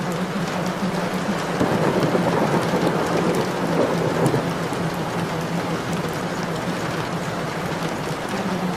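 Steady rain ambience with a steady low hum underneath, and a roll of thunder swelling up about two seconds in and fading away a few seconds later.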